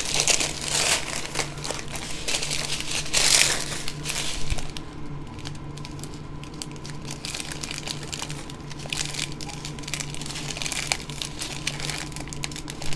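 Clear plastic bags of diamond-painting rhinestones and special-shape drills crinkling as they are handled, in irregular bursts that are loudest in the first few seconds and softer after.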